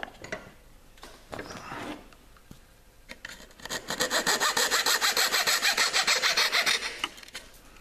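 Coping saw cutting across thin plywood in rapid short strokes, starting about three seconds in and stopping shortly before the end, after a few quiet seconds of faint handling. This is the horizontal cut that frees the waste from a finger-joint slot.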